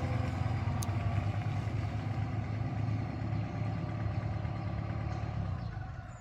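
Heavy vehicle engines running steadily with a low hum, easing off slightly near the end.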